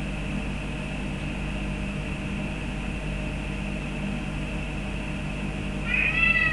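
Birman cat giving one loud meow near the end, pleading for a feather duster it isn't allowed, the call starting high and falling in pitch. A steady low hum lies underneath.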